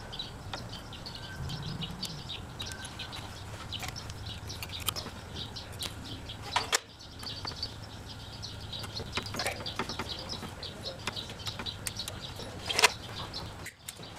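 Steel safety wire being threaded through and wrapped around brake caliper bolt heads by hand: light scratchy ticks and rustles of wire on metal, with a sharper click about seven seconds in and another near thirteen seconds.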